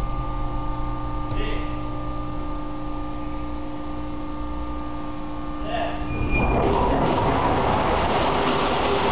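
Steady machinery hum with a few held tones, then about six seconds in a loud, steady noise starts suddenly and keeps on: a ship's anchor chain running out as the anchor drops in free fall.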